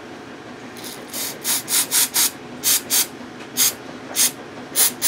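Aerosol can of mass airflow sensor cleaner sprayed in about a dozen short hissing puffs, two to three a second, starting about a second in, cleaning dirt and oil from a cordless tool motor's coil windings.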